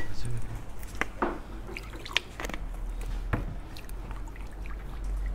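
Chopsticks stirring a thin sauce in a glass bowl, ticking against the glass now and then, with soft wet mixing sounds.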